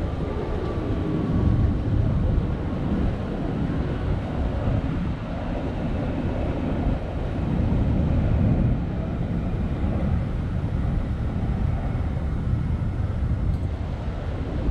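Wind buffeting the action camera's microphone: a dense low rumble that swells and eases.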